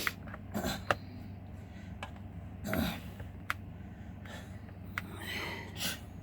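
Scattered sharp knocks and clicks of hand tools working at a metal safe, with a few short breathy huffs of effort in between.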